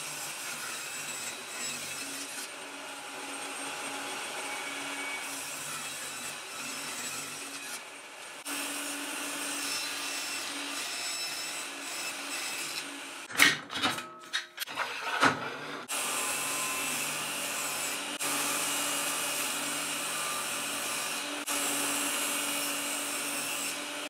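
Bosch GTS 10 XC table saw running steadily while ripping strips from multiplex plywood. A short clatter of knocks comes a little past the middle.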